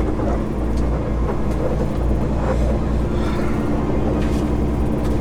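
Semi truck's diesel engine running steadily while driving: a low, even drone with a few light knocks or rattles.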